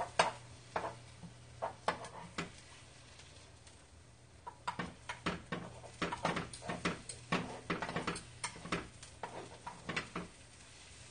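Irregular light clicks and taps of a utensil against a square frying pan as pieces of battered food are placed and nudged into rows, thickest in the second half, over a steady low hum.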